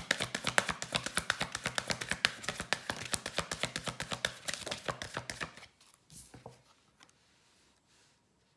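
A tarot deck being shuffled by hand: a rapid, even patter of cards flicking against each other, about ten clicks a second, that stops about five and a half seconds in. A couple of soft card rustles follow.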